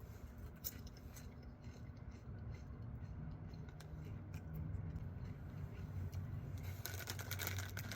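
Someone eating potato chips from a bag: small crisp crunches and bag crinkles, with a denser crackle of the bag near the end, over a low steady hum.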